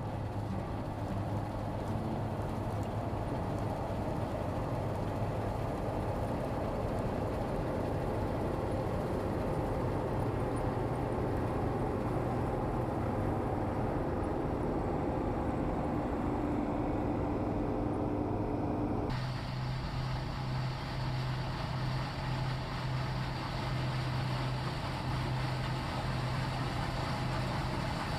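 Engine of harvesting machinery running steadily. About two-thirds of the way through, the sound changes abruptly to a slightly higher, steadier engine hum.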